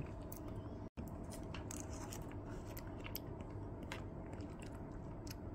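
Faint scattered clicks and scrapes of a metal spoon in a plastic cup of Greek yogurt, over a steady low hum.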